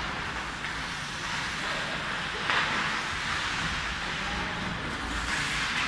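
Ice hockey skates scraping and carving on the rink ice over a steady background hiss. Two louder scrapes come about two and a half seconds in and again near the end.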